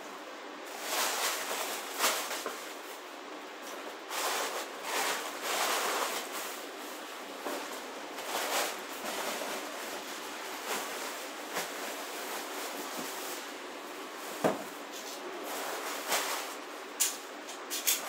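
Irregular rubbing and rustling of things being handled close to the microphone, with a few light knocks, the sharpest about two-thirds of the way through and two more near the end.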